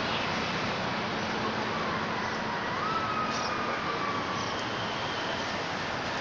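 Steady outdoor background noise with a faint thin tone that glides up and holds for about a second and a half near the middle.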